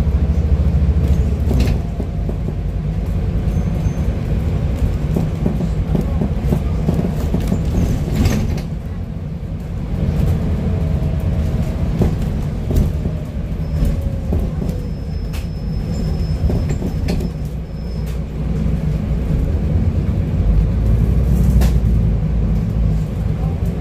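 Scania N250UD double-decker bus's five-cylinder diesel engine and drivetrain running on the move, heard from inside on the upper deck with road noise and interior rattles. The engine's low rumble is heaviest near the start and again near the end as it pulls away, with a few sharp knocks from the bodywork along the way.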